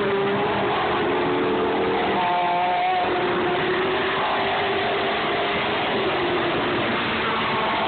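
Race cars passing at speed on a circuit, one after another, their engine notes shifting in pitch as they go by.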